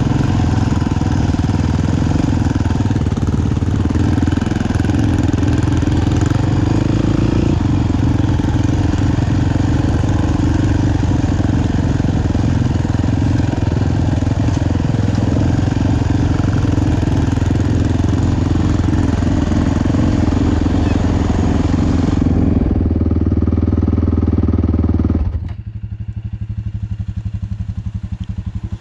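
Dirt bike engine running while it is ridden, then about 25 seconds in dropping abruptly to a quieter idle with an even, regular putter.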